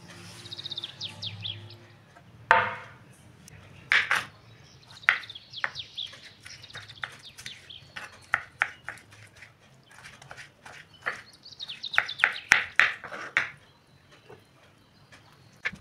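A knife chopping tomatoes on a wooden cutting board: irregular sharp chops starting a few seconds in, coming in quick runs that are densest near the end. High chirping can be heard behind the chopping.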